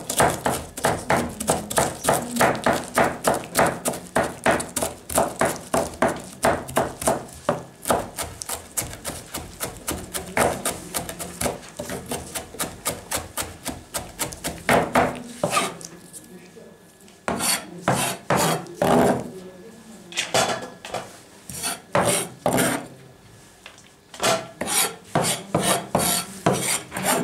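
Kitchen knife shredding and chopping cabbage on a plastic cutting board: quick, even knocks of the blade on the board at about four to five a second, breaking after about two-thirds of the way into shorter runs with pauses between.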